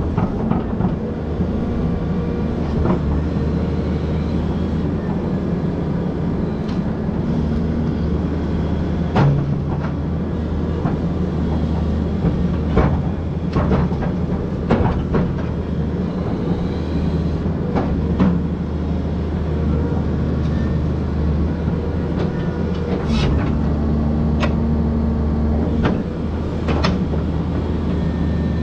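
Volvo excavator's diesel engine running steadily under work, its note shifting now and then, with scattered sharp knocks and clanks from the machine as it digs out trees.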